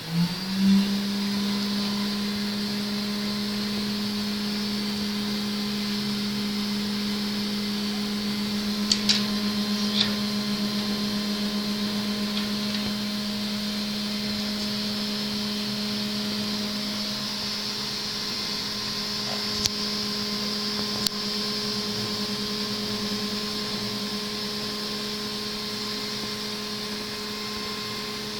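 Small electric motor of an RC car running at a steady speed: an even low hum with a high whine above it. It starts with a click and a quick rise in pitch, with a few faint clicks later on.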